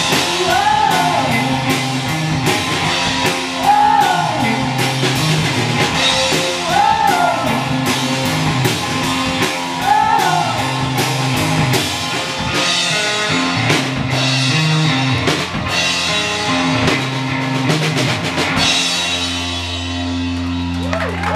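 Live garage rock band playing loudly: electric guitar and a drum kit pounding out a steady beat, with a bending melodic phrase that comes back about every three seconds. About nineteen seconds in the drumming drops away and a low chord is held ringing.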